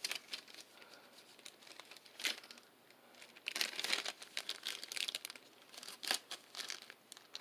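Crinkling and rustling handling noise in several short, separate bursts, as of plastic and paper being handled.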